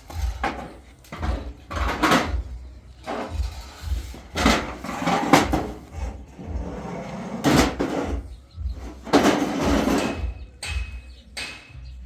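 Irregular knocks and clattering of objects being handled, over repeated low thuds.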